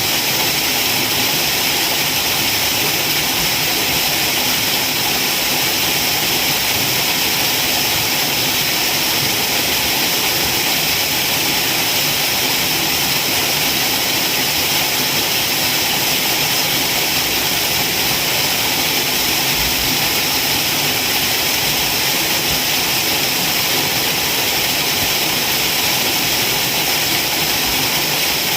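Waterfall: a steady, unbroken rush of falling water, heavy in hiss, with no change in level.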